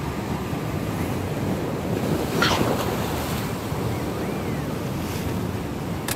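Sea waves washing against a rocky shore, with wind buffeting the microphone; a louder surge of surf comes about two and a half seconds in.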